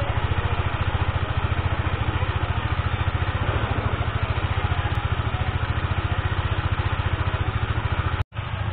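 A 390cc single-cylinder motorcycle engine idling with a steady, fast low pulse. It cuts off abruptly about eight seconds in, and a quieter engine hum follows.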